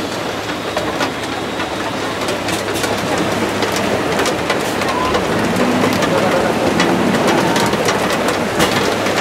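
Rain falling on a bus's roof and windshield, heard from inside the cabin as a steady hiss with many sharp drop hits, over the bus engine's steady low hum.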